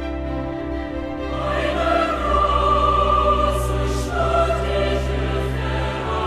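Background music: choral, opera-like singing over sustained low chords, the voices entering about a second in.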